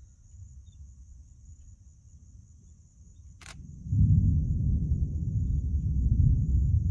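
A single sharp click, then about four seconds in a deep, uneven rumble from the thunderstorm sets in suddenly and stays loud. A faint, steady high whine runs underneath.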